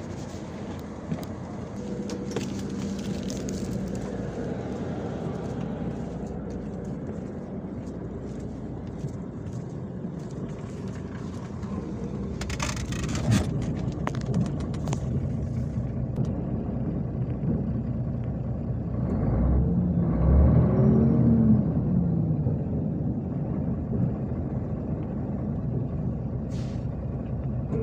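MAZ-251 coach's diesel engine running, its note rising and falling briefly about two-thirds of the way through.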